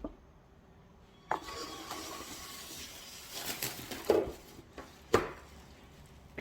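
Household objects being handled: a steady hiss over a few seconds, broken by three sharp knocks, the last and loudest near the end.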